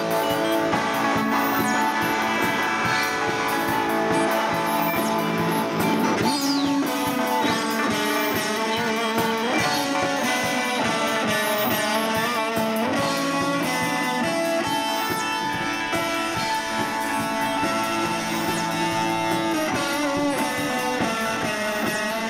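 Live band music led by strummed electric guitar, an instrumental passage of held chords that plays on without a break, with a pitch glide a little after six seconds in.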